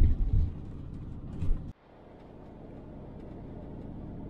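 Motorhome driving on the road, heard from inside the cab: a steady low road and engine rumble with a few heavier low thumps in the first second and a half. About two seconds in it cuts off abruptly, then a steady driving rumble fades back up and holds.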